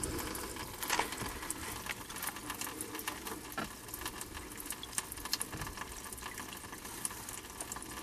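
Water pouring in thin streams from the open block and exhaust-manifold drains of a boat's 3.0 engine, splashing and pattering below with many small irregular drips. The engine's cooling water is being drained so it cannot freeze in the block.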